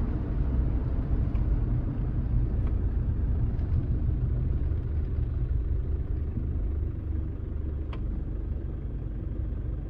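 Mitsubishi Delica Space Gear's 4M40 2.8-litre four-cylinder turbo-diesel running under way, heard inside the cab as a steady low rumble mixed with road and tyre noise. It grows a little quieter over the last few seconds as the van slows.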